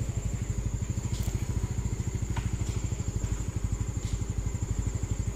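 An engine idling with an even, rapid putter, plus a faint steady high whine.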